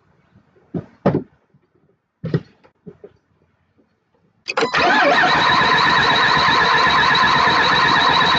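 A few thumps, then about four and a half seconds in a car's starter motor begins cranking the engine, a steady loud churning with a regular pulse that carries on. This is the cranking for a relative compression test, pulling the battery voltage down.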